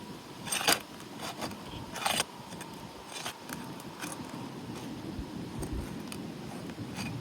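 Roof shingle being pried loose from its seal, with a few sharp scraping clicks: the loudest about a second in and again about two seconds in, fainter ones after. The shingle is tearing as it is worked free. Under it, a low, steady background noise.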